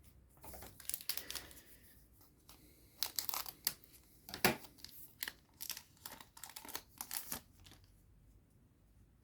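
Booster pack wrapper being torn open and crinkled in the hands, in irregular crackles that die down near the end.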